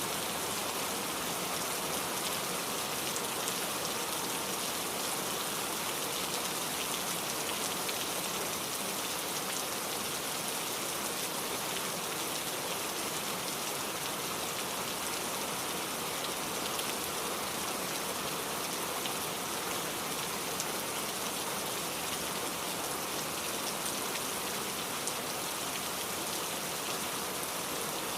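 Steady rainfall, drops pattering on a surface in an even, unbroken hiss with faint individual drop ticks.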